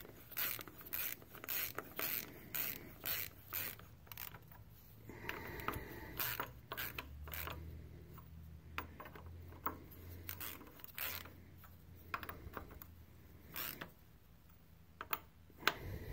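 Hand ratchet wrench clicking as bolts on a diesel engine's injection camshaft gear are snugged down. It goes in a quick rhythm of about two strokes a second for the first four seconds, then breaks into scattered clicks.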